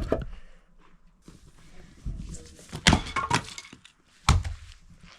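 Split firewood being picked up from a pile, with a few sharp knocks and clatters of logs hitting each other, the loudest about three seconds in and again just after four seconds.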